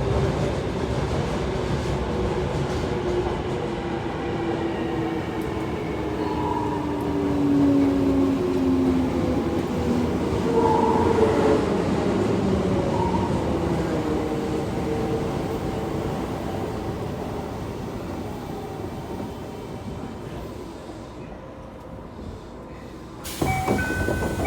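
Toei Asakusa Line 5300 series train running, heard from inside the car: its motor whine falls in pitch as the train slows, and the running noise dies away toward a stop. Near the end a sudden burst of sound comes with short chime tones.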